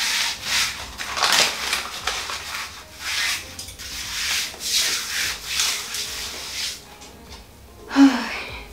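Hands smoothing self-adhesive contact paper onto a tiled wall: a run of swishing, rubbing strokes of palm over the paper that die away about two seconds before the end, then one brief louder sound near the end.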